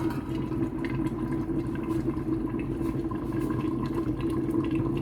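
Covered pot of egusi soup boiling on the stove, with a steady hum.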